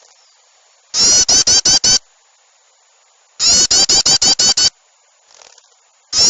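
Looped bird-lure recording of agitated small birds chattering in alarm. It plays as three identical bursts of about six rapid, sharp notes each, with short pauses between.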